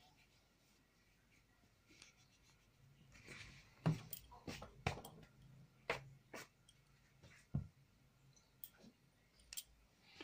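A sheet of drawing paper being handled: rustling, then a string of sharp paper flaps and taps from about four seconds in as the sheet is lifted off the table and set back down.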